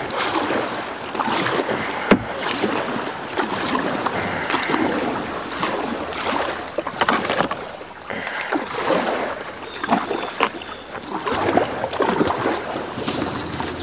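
A kayak forced through a narrow, choked stretch of river: paddle strokes splashing, with irregular sharp knocks, a strong one about two seconds in.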